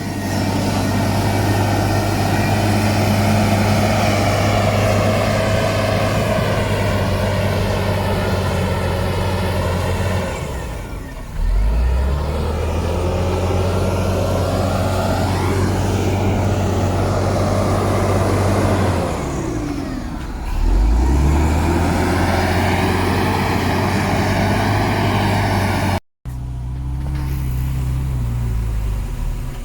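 Heavy diesel engine of earthmoving machinery working under load. Its pitch drops and climbs back up twice, and the sound breaks off briefly near the end.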